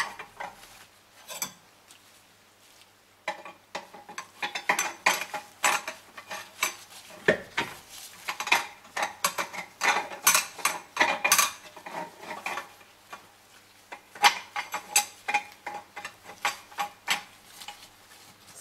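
Steel clutch plates and friction discs of a Mercedes 722.3 automatic transmission's reverse-gear clutch pack being slid one after another into the splined housing, with repeated light metallic clinks and scrapes. There is a short pause of about a second near the start.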